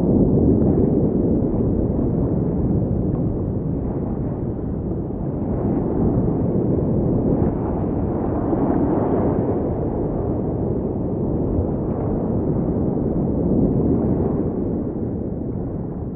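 Underwater ambience heard through a camera housing: a steady, low, noisy rumble of moving water that swells a little now and then and fades out at the end.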